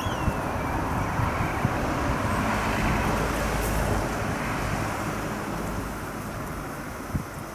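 Low, distant engine rumble that swells to a peak about three seconds in and then fades.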